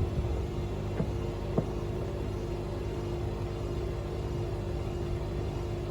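Logik L712WM20 washing machine running with a steady motor hum and drum rumble as it tries to balance the load before spinning. Two light knocks come about a second in and again half a second later.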